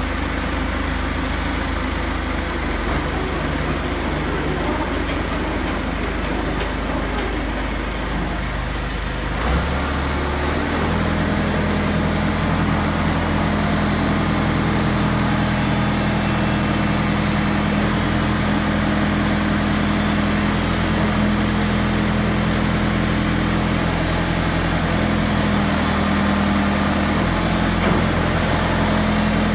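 1986 John Deere 455E crawler loader's diesel engine running. About ten seconds in the engine speed is raised: the pitch steps up, slightly louder, and holds steady there.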